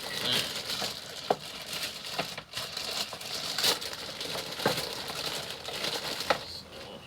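Hands working on a suspension part: a steady crinkling rustle broken by four sharp clicks and light knocks.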